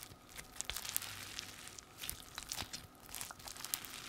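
Hand-kneaded clear blue slime with small balls mixed in, squeezed and stretched: a wet, irregular crackling made of many small clicks and pops.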